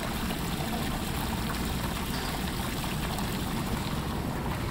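Steady rush of running water, like a stream or waterfall, with no distinct events.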